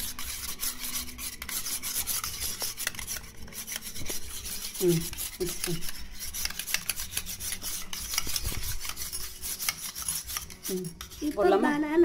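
A metal spoon beating raw egg in a stainless steel bowl: quick, continuous scraping strokes of the spoon against the bowl.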